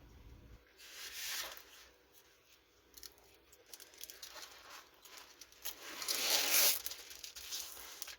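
Plastic packaging of a diamond painting kit crinkling as it is handled, with a short rustle about a second in and a longer, louder one around six seconds in.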